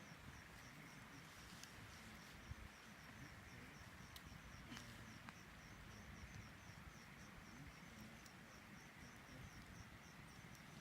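Faint insect chirping, a high pulse repeating evenly about three times a second, with a few faint short clicks and pops of the campfire in between.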